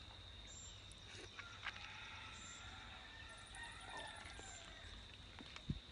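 Faint outdoor background of distant chickens, with a steady high-pitched whine and a few soft clicks.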